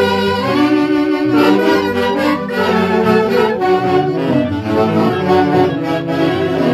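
Live orquesta típica playing a Santiago dance tune, with saxophones carrying the melody.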